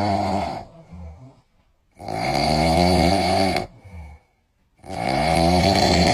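A person snoring: the end of one snore at the start, then two long snores, each about a second and a half, with a short silence between them.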